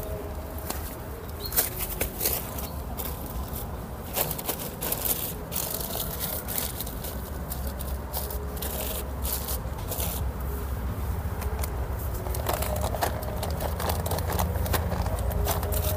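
Black plastic polybags of soil crinkling and scraping as they are handled and set down, a run of short, irregular crackles over a steady low rumble.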